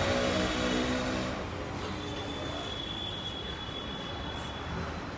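A 2 HP air compressor running with a steady mechanical hum that drops in level about a second and a half in, leaving a quieter steady hum with a faint high whine.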